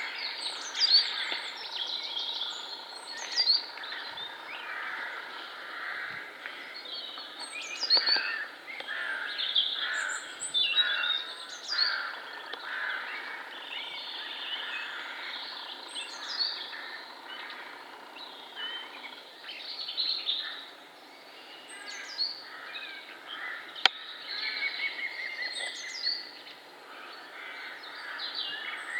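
Several woodland songbirds singing at once, a dense mix of chirps and song phrases, one high phrase recurring every few seconds. A single sharp click sounds about two-thirds of the way through.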